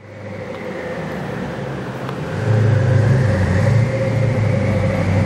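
Koenigsegg Agera R's twin-turbo V8 running at low speed with a steady low drone and a faint higher whine, getting louder about two and a half seconds in.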